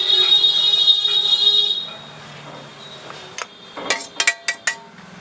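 A shrill, steady high-pitched whistle that cuts off about two seconds in, followed near the end by a quick run of sharp clinks and knocks of utensils against a bowl as the cooked chicken is added to the vegetable mix.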